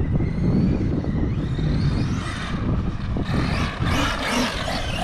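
Arrma Mojave 6S EXB RC truck driving, its brushless electric motor whining up and down in pitch several times as the throttle is worked, over a steady low rumble.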